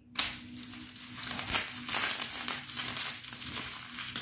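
Plastic bubble wrap crinkling and popping under a child's bare feet as it is stepped on, with a sharp pop just after the start and then a steady run of crackles and pops.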